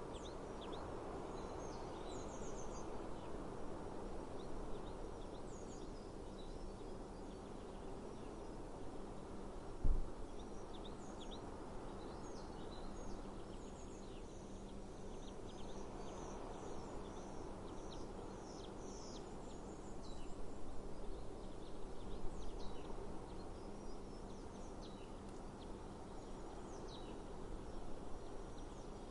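Small birds chirping over steady outdoor breeze noise, with many short, high chirps throughout. One brief low thump comes about a third of the way in.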